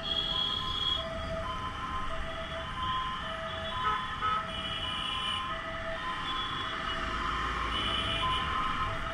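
Ambulance siren sounding a two-tone hi-lo pattern, a higher and a lower note alternating steadily, each held about half a second. Under it runs the low rumble of the motorcycle and road noise.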